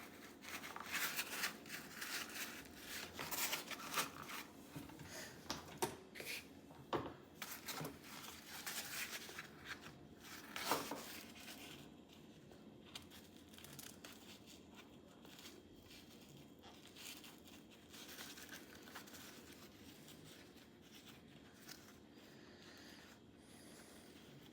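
Stiff 1000D Cordura nylon pouch being handled, with rustling, scraping and crinkling for the first eleven seconds or so, then only faint handling noise.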